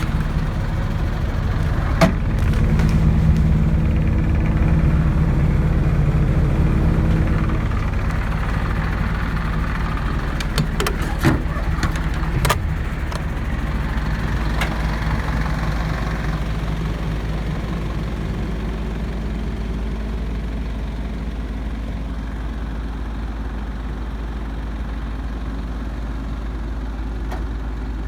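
Mercedes-Benz Atego truck's diesel engine running steadily at about idle, with a few short clicks and knocks in the first half; the drone eases off slightly after the first few seconds.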